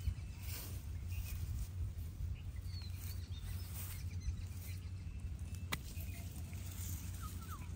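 A freshly landed fish flapping and slapping against wet mud as it is held down by hand, over a steady low hum, with a sharp click a little before the end and a couple of faint bird chirps.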